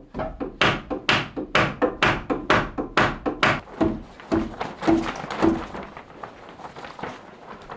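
A regular run of sharp knocks and thuds, about two a second for some three seconds, then a few softer knocks: footfalls and the knocking of a long timber board as a man climbs a metal scaffold tower carrying it.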